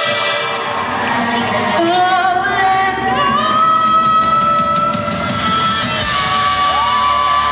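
A rock band playing live in a large hall, with singing over electric guitars. Long held notes ring out for a couple of seconds at a time.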